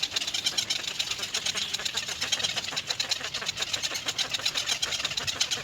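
Nestling birds in the nest giving a rapid, continuous chatter of short high ticking calls, about ten a second, typical of chicks begging for food.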